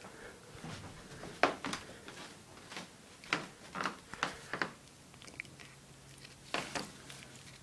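Domestic cat chewing and biting on a string close to the microphone: short, sharp chewing clicks in irregular clusters, with a lull of about two seconds before a last cluster near the end.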